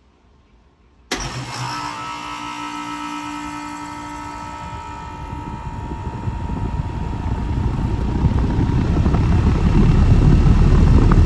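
Outdoor unit of a 2021 Bryant Preferred Series 2-ton central air conditioner starting up: about a second in the compressor comes on suddenly with a steady hum. Then the Broad-Ocean condenser fan motor builds up speed, its rushing air noise growing steadily louder.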